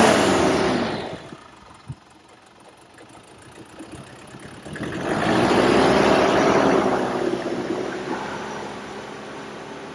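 A vehicle engine passing, its pitch falling as it fades in the first second. A second vehicle engine grows loud about five seconds in and then slowly fades.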